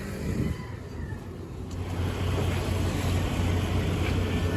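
Street traffic noise: a motor vehicle's engine running close by, with a low steady hum that grows louder about two seconds in.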